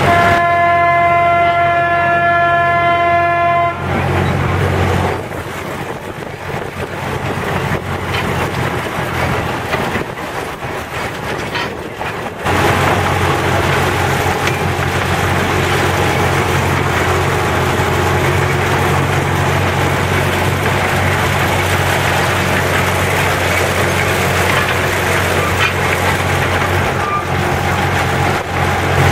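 Small narrow-gauge locomotive's engine running, with its horn giving one long steady toot of about three seconds at the start. The engine then drops quieter for several seconds and picks up again about twelve seconds in.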